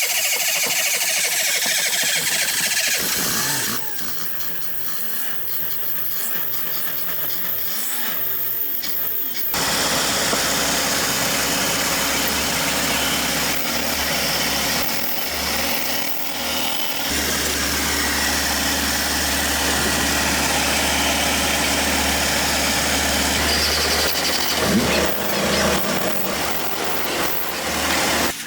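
Car engine being started, catching about ten seconds in and then running steadily with a low, even hum.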